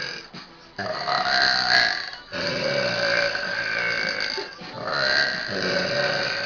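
A girl belching: about three long, drawn-out burps in a row, each lasting a second and a half to two seconds, with short breaks between them.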